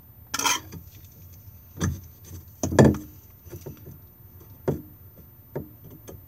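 Handling clicks and knocks of a plastic drain valve lever on a caravan's onboard water tank being pulled and worked by hand: a short rattle just after the start, then four or five dull knocks, the loudest about three seconds in.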